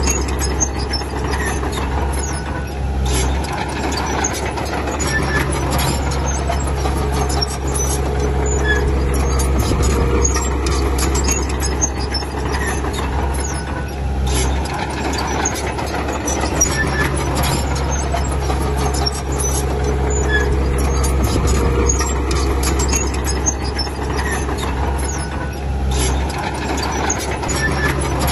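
A D30P bulldozer's diesel engine working steadily under load, with high squeaks and clanks from its tracks. The engine note rises and eases in a cycle that repeats roughly every eleven seconds.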